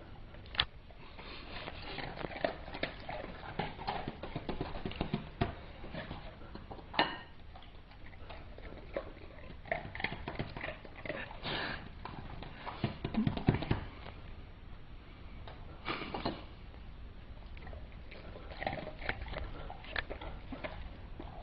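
A person eating cookies like a dog: sniffing and crunching, with irregular clicks and knocks.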